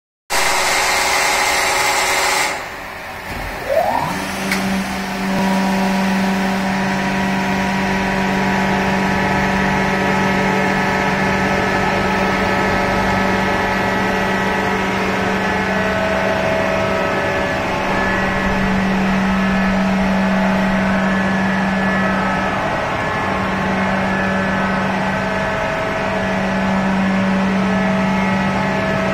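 A CAT 312 excavator hydraulic pump is test-run on a pump test bench. After a loud rushing noise that stops about two and a half seconds in, the drive spins up with a brief rising whine. The bench and pump then run steadily with a constant hum and whine.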